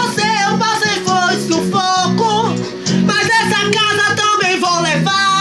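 A voice singing a melody to acoustic guitar accompaniment, with the chords changing about every half second.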